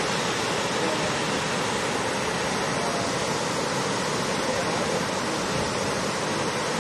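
Steady rush of a waterfall: the several streams of Ethipothala Falls dropping about 21 m over a rock ledge into the pool below.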